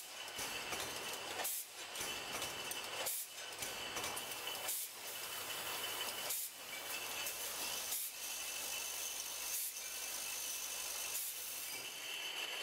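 Automatic 661 EPV beer bottling microblock running: a steady mechanical hiss and clatter with a sharp hiss-click and a brief lull repeating about every one and a half seconds as the machine indexes bottles through its cycle.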